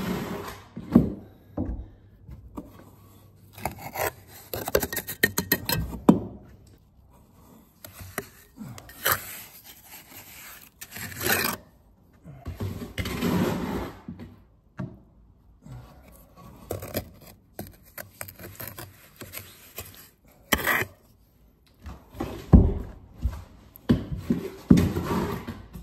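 Trowel scraping wet sharp-sand mortar from a metal bucket and dropping dollops of it onto bricks, in a run of irregular scrapes and sudden knocks.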